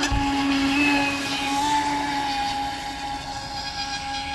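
Radio-controlled speedboat running flat out across the water, its motor giving a steady high-pitched whine that wavers slightly in pitch. It is loudest as the boat passes close and eases off as it runs away.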